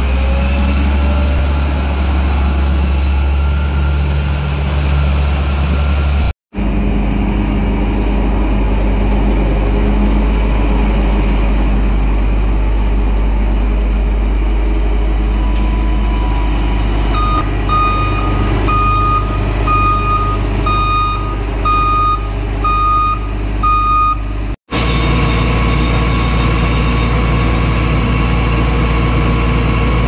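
Case IH Axial-Flow 7120 combine harvester's diesel engine running steadily. Past the middle, a reversing alarm beeps for about seven seconds, about one and a half beeps a second.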